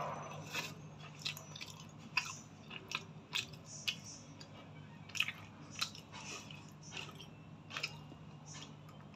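Close-up chewing and mouth sounds of someone eating noodles: irregular short clicks, with a faint steady low hum underneath.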